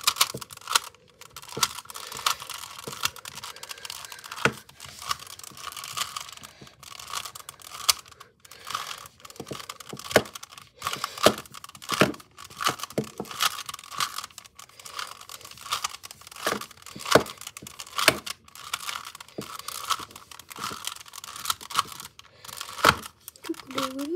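Plastic Rubik's cube being turned by hand: irregular clicking and clacking as its layers snap round, sometimes several quick turns in a row.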